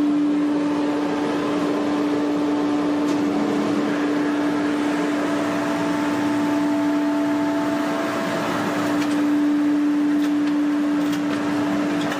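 Sawmill machinery running steadily with a constant hum.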